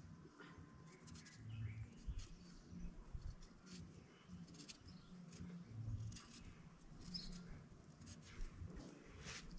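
Faint scraping and clicking of a kitchen knife peeling raw potatoes by hand, in short irregular strokes. A brief high chirp sounds about seven seconds in.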